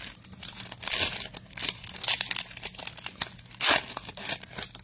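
Foil trading card pack being torn open and crinkled by hand, with irregular crackles and a louder tear about three-quarters of the way through.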